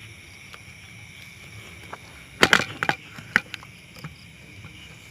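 Steady high insect trilling, with a quick run of sharp cracks about two and a half seconds in and one more crack a moment later.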